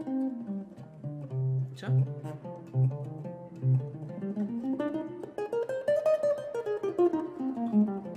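Yamaha SLG200N nylon-string silent guitar playing C minor scale notes one at a time: a short falling run, a low C picked four times, then a run climbing up the scale and coming back down near the end.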